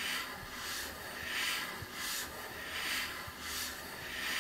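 A stainless steel lapping rod worked back and forth and turned in scope rings with aluminum oxide lapping compound: a gritty, rhythmic rasping, about three strokes every two seconds. The abrasive is grinding metal off the ring surfaces to increase their contact with the scope tube.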